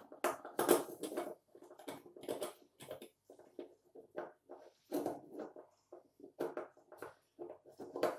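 Hands working at the parts inside a MIG welder's wire-spool compartment, making irregular clicks, knocks and rustles, loudest about a second in and again near the middle.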